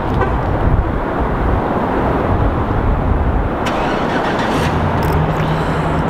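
A steady rushing noise throughout, and about four and a half seconds in a pickup truck's engine starts by remote start and settles into a steady idle hum, warming up in the cold.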